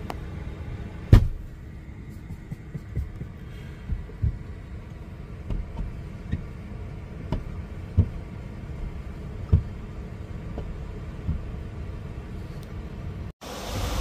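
Squeegee and scrubber being worked across the outside of a semi truck's soapy windshield, heard from inside the cab: irregular dull thuds against the glass every second or so, the strongest about a second in, over a steady low hum. The sound cuts off abruptly shortly before the end.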